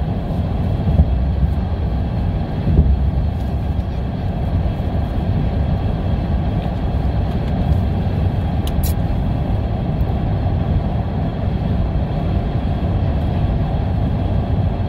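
Steady low road and engine rumble of a car heard from inside the cabin while driving. A brief faint high tone sounds about 9 seconds in.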